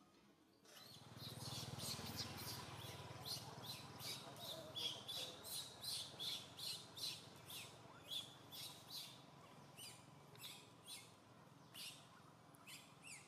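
A bird chirping repeatedly in quick short notes, about three a second, thinning out after about nine seconds, over a faint steady outdoor background noise.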